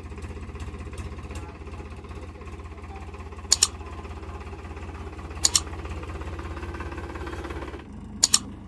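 Powertrac Euro 50 tractor's three-cylinder diesel engine running with a steady low thrum while pulling a loaded trolley. Three pairs of sharp mouse-click sound effects from a subscribe-button animation, about two seconds apart, are the loudest sounds; the engine sound changes abruptly shortly before the end.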